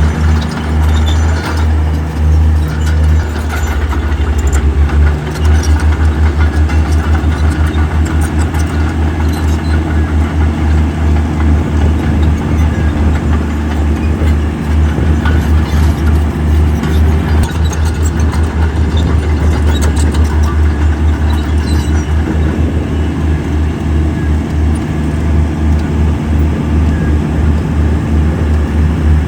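Diesel engine of heavy earthmoving equipment running steadily with a deep, rapidly pulsing throb.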